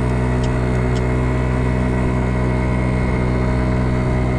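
Kymco Agility 50 scooter's 50cc engine running steadily under load as it climbs a hill at about 20 mph, its pitch holding level.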